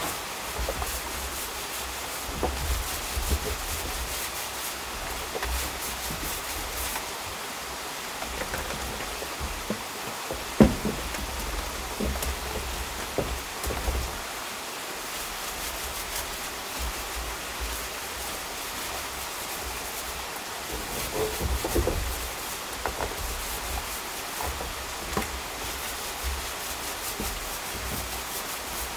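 Paint roller rubbing back and forth over wooden deck boards, over a steady rushing hiss, with scattered soft knocks and one sharp knock about ten seconds in.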